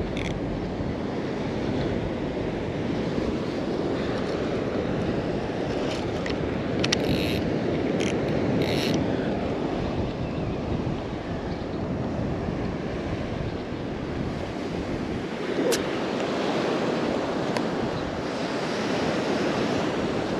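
Wind rumbling on the microphone over the steady rush of Gulf surf breaking on the beach, with a few brief clicks about six to nine seconds in.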